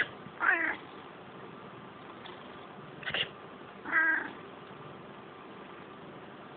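A person sneezes and a pet cat answers with a short, angry meow; about three seconds later a second sneeze is answered by another short meow. The cat is complaining at the sneezes.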